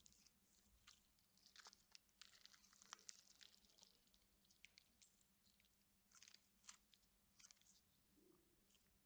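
Slime mixed with styrofoam balls being squeezed and kneaded, the beads giving faint, irregular crackles and crunches.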